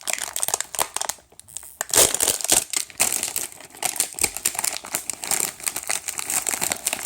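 A plastic snack wrapper crinkling and rustling as it is torn open by hand, in irregular bursts with a louder rip about two seconds in.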